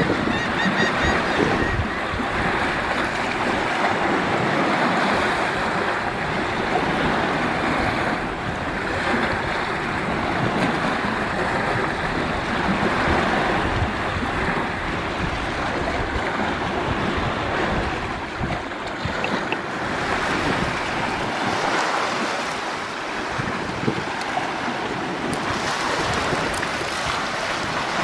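Wind buffeting the microphone over small waves lapping on a sandy shore, a steady rushing noise.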